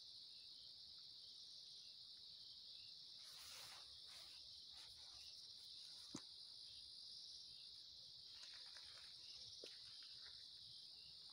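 Faint, steady high-pitched chorus of night insects, with a brief rustle about three and a half seconds in and a single sharp click about six seconds in.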